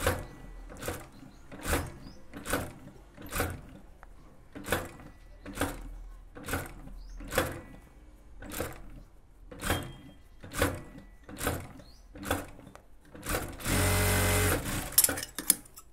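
Industrial sewing machine stitching pleats into a puff sleeve, run in short bursts roughly once a second as each pleat is folded in, then running steadily for about a second near the end.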